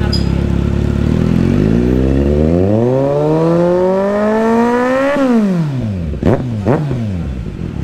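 Kawasaki Z900 inline-four motorcycle engine on an open aftermarket exhaust with the stock breadbox pre-muffler removed, idling, then revved in one long climb of about three seconds that drops back to idle when the throttle is shut, followed by two quick throttle blips near the end.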